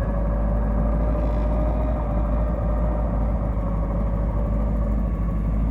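Triumph TR7's Rover LT77 five-speed gearbox whining steadily in neutral with the clutch pedal out, over the 2.0-litre slant-four engine idling. The whine stops when the clutch is pressed and rises with revs; its cause is unknown to the owner.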